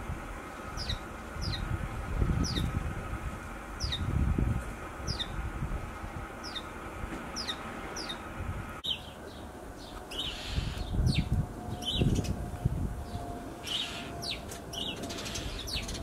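Garden songbirds calling: a small bird repeats a short, high, down-slurred note about every two-thirds of a second. After a sudden cut about halfway through, a busier mix of high chirps follows, over a low rumble that comes and goes.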